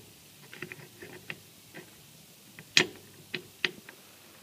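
Scattered light clicks and knocks of a broken band saw part being handled and fitted into place, the loudest about three seconds in.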